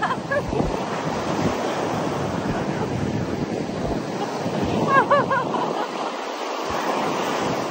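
Ocean surf washing onto the beach, with wind buffeting the microphone; a brief voice is heard about five seconds in.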